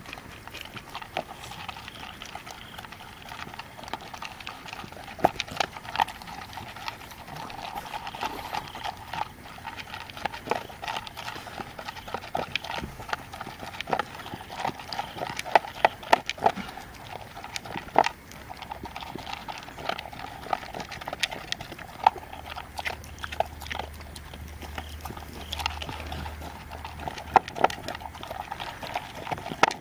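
An American Staffordshire terrier eating dry kibble from a bowl: steady crunching and chewing with many irregular sharp clicks of teeth and kibble against the bowl.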